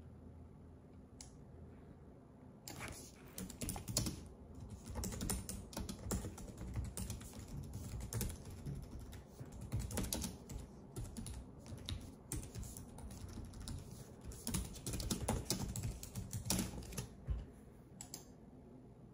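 Fingertips tapping on a smartphone's touchscreen, picked up close by the phone's own microphone: quick, irregular runs of light taps, as in typing, starting about three seconds in and stopping shortly before the end.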